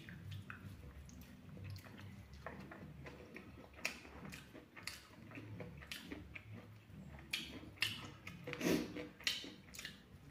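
A person chewing fried pork close to the microphone, with many short wet mouth smacks and clicks that come thickest and loudest near the end.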